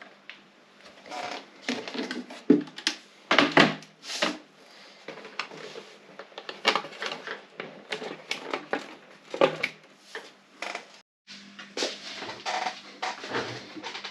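Olympia SM 7 manual portable typewriter being typed on: irregular keystrokes, several a second, as the type bars strike the platen, some much louder than others.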